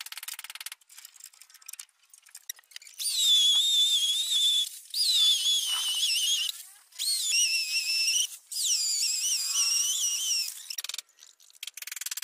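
High-pitched whistle-like tones in four wavering phrases, each a second or two long, with short gaps between them.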